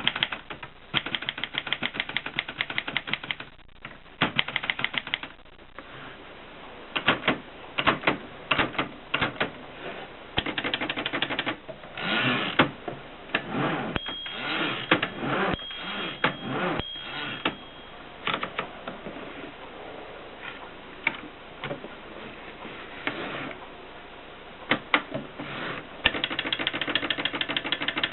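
Erika M portable manual typewriter being typed on: fast runs of key strikes at the start and again near the end, with slower, scattered strikes in between.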